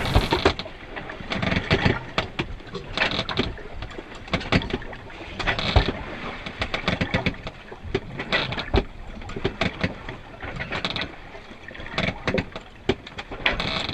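Sounds aboard an Albin Vega 27 sailboat under way at sea: water washing and rushing in irregular surges every second or two, mixed with many sharp knocks and clicks.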